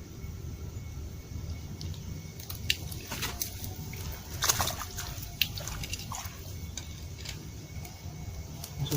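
Light water splashes and drips, with a few short sharp clicks, mostly in the middle seconds, over a steady low rumble.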